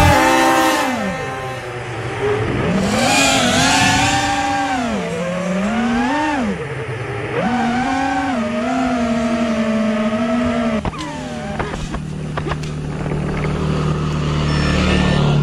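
FPV quadcopter's brushless motors whining, the pitch swinging up and down with the throttle. About eleven seconds in there are a few sharp knocks and the motor whine stops. A low motorcycle engine hum then builds, loudest near the end.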